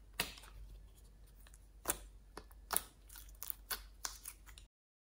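A bunny-shaped plastic slime container is handled and opened by hand, giving a string of sharp, irregular plastic clicks and sticky crackles. The sound cuts off abruptly near the end.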